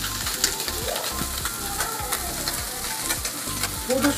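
Food frying in oil in a pan, with a steady sizzle. A spatula stirs it, making frequent short scraping clicks against the pan.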